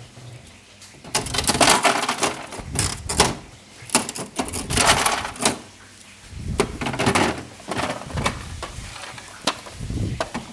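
Ice cubes clattering and rattling against a hard container as they are handled, in several separate bursts with smaller clicks in between.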